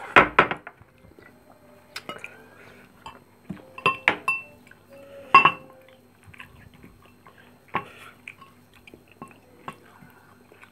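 A metal spoon clinking and scraping against ceramic bowls and a plate while food is served. A quick cluster of sharp clinks comes right at the start, two ringing clinks follow about four and five and a half seconds in, and lighter taps are scattered in between.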